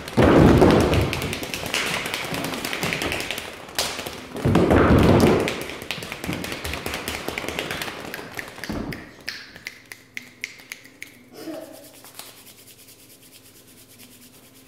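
A group of children making a rainstorm with body percussion: two loud surges of stamping and patting on a wooden floor, then a dense rapid patter of hand taps that thins out and dies away to soft tapping and rubbing of hands, the rain easing off.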